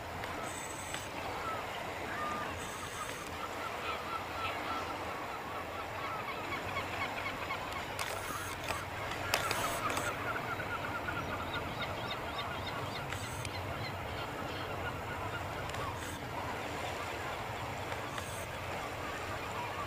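Birds calling in quick repeated series, densest about midway, over a steady background noise.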